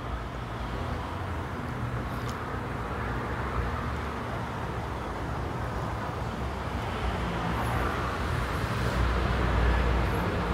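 Steady low background rumble with hiss, like outdoor ambience, swelling slightly in the last few seconds.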